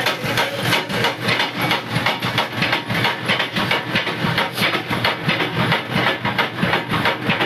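Flour mill grinding machines running loudly, with an even, fast clatter of about three strokes a second.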